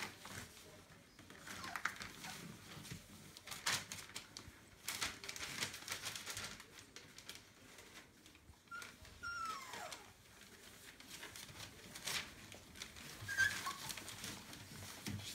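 24-day-old Entlebucher puppies moving on newspaper: scattered rustling and crinkling of the paper. There are a couple of short high puppy squeaks, one sliding down in pitch about nine seconds in and another near the end.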